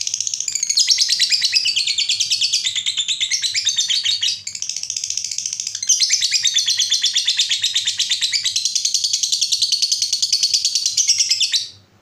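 Lovebird giving the long 'ngekek' chatter prized by keepers: a fast, high-pitched run of notes kept up without a break, softer for a moment around the middle. It cuts off suddenly just before the end.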